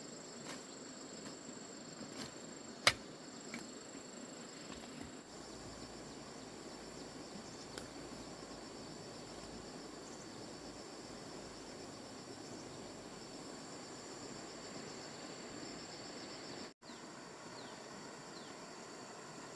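Steady high-pitched insect chirring in a field, with a pulsing buzz under it. A few light clicks and rustles come in the first few seconds, including one sharp snap about three seconds in. The sound cuts out for an instant near the end.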